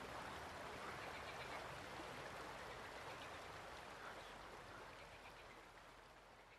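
Faint, steady water noise like rain or a running stream, with soft high chirps, fading away toward the end.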